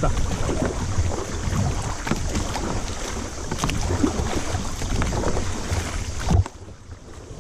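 River water splashing and lapping around an inflatable raft, with wind rumbling on the microphone. A sharp knock comes about six and a half seconds in, after which the sound turns quieter and muffled for about a second.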